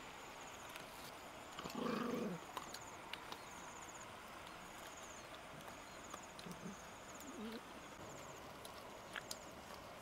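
Dogs chewing and tearing at a raw chicken carcass, with scattered crunching clicks; a dog gives a short growl about two seconds in, and two fainter, shorter ones follow later. A short high trill repeats about once a second in the background.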